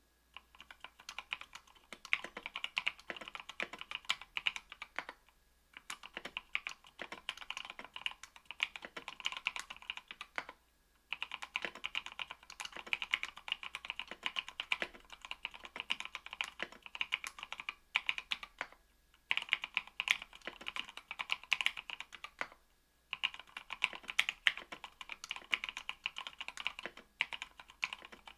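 Mechanical keyboard typing on lubed NovelKeys Cream linear switches (70 g) in an aluminium-plate Octagon V3 board: rapid, continuous keystroke clacking in runs of several seconds, with brief pauses between runs.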